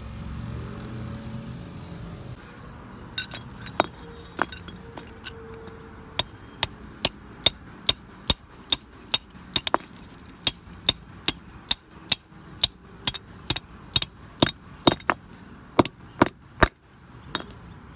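A brick hammering a steel paint-roller frame rod flat against concrete to straighten out its bend: sharp knocks, a few scattered at first, then a steady run of two to three blows a second that stops about a second before the end.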